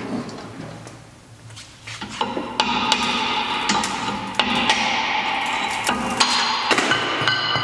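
Repeated hammer blows on a VW Polo 6R rear brake disc that is stuck on the hub, the disc ringing after each strike. The blows start about two seconds in and come two or three a second.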